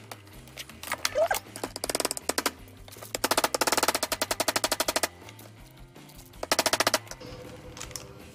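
A hammer tapping wire staples into a wooden board: a few single knocks, then two fast, even runs of sharp knocks, a long one about three seconds in and a short one near seven seconds. Soft background music underneath.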